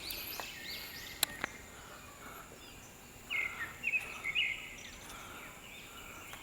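Wild birds calling: a run of short arching chirps at the start, then a cluster of brighter chirps about three to four and a half seconds in, over a faint steady high tone, with two sharp clicks a little after one second.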